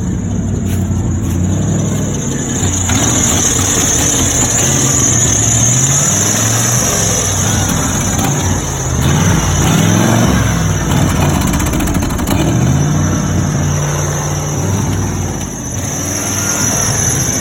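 1995 Ford F-150 engine running and being revved up and down several times, with a steady high-pitched whine above it. The truck's alternator is bad.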